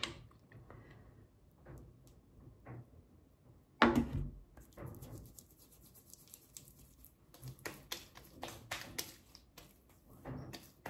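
Quiet handling sounds as the face cream container is opened and the cream is taken out: one sharp knock about four seconds in, then scattered light clicks and taps, with soft hand-on-skin sounds near the end as the cream is rubbed on.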